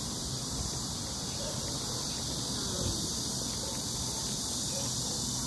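Steady high-pitched insect chorus droning without a break.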